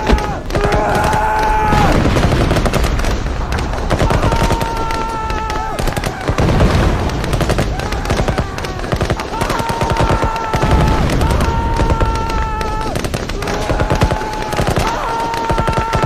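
World War I battle sound effect: rapid machine-gun and rifle fire over a low rumble, with held high tones of one to two seconds recurring every couple of seconds.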